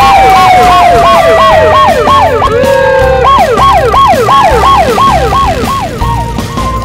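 Siren sound effect: a fast wail rising and falling about three times a second, with a long whistle falling in pitch over the first three seconds, over a low pulsing beat.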